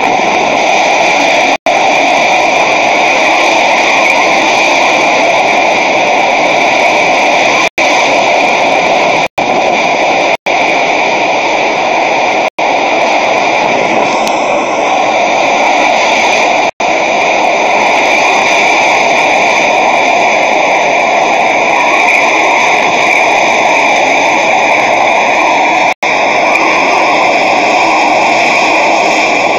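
Extreme storm wind, gusting toward 200 mph, with driving rain: a loud, steady rush of air and spray. The sound cuts out for an instant about seven times.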